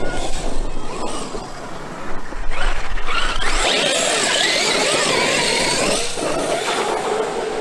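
Electric radio-controlled truck driving hard, its motor whine rising and falling with the throttle over the scrabble of tyres on the ground. It grows loud about two and a half seconds in and eases off near the end.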